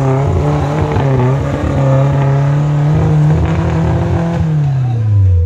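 Small four-wheel-drive offroader's engine revving as it crawls down a steep, rutted dirt trench, the revs held high for a few seconds and then dropping away near the end.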